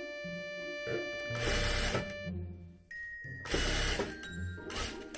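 Sewing machine stitching in two short runs, the first about a second and a half in and the second about two seconds later, over light background music.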